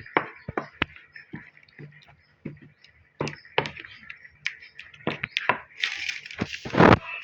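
Irregular knocks and clicks of a pestle in a stone mortar, with a longer scraping grind near the end, as mango sambal is crushed.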